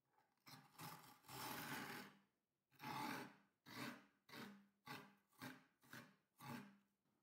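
Metal ice cream scoop scraping and shaving frozen coffee mixture in a glass baking dish. One long scrape comes first, then a run of short strokes about two a second.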